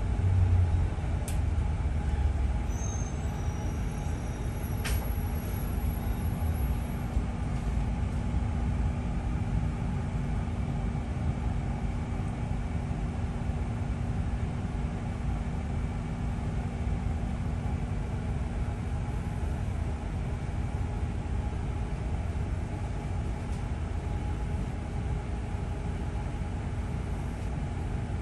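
London double-decker bus running, heard from inside on the upper deck: a steady low engine and road rumble with a constant hum, and a couple of faint ticks in the first few seconds.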